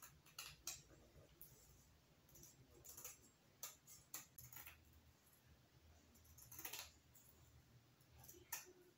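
Faint, scattered clicks and light rattling of a rhinestone mesh ribbon being handled and laid out.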